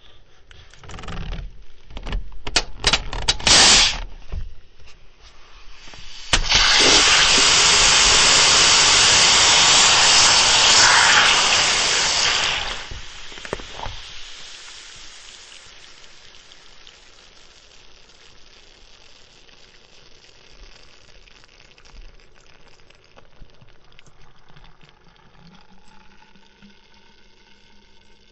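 Coca-Cola being opened: a few sharp clicks, then a sudden loud hiss of carbonation gas rushing out for about six seconds that dies away, leaving a soft crackling fizz of bubbles.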